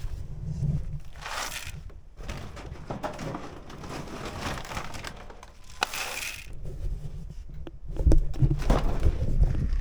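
Footsteps crunching in snow, in irregular patches, over a low rumble on the microphone.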